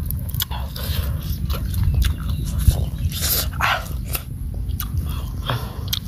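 An animal chewing and biting, with many short sharp clicks over a steady low rumble.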